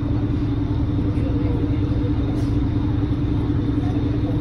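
Boat's engine running steadily under way: a constant low drone with an even hum. Wind rumbles on the microphone.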